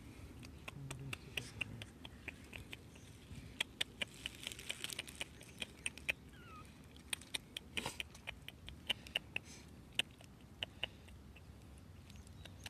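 Stray kittens close by, making irregular sharp clicks and ticks, denser and louder from about three and a half seconds in, with a faint short falling cry about six seconds in.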